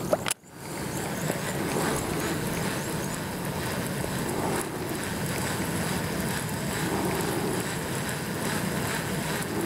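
Steady wind and water noise picked up by a camera mounted on an inflatable kayak out on a lake, with a brief dropout just after the start.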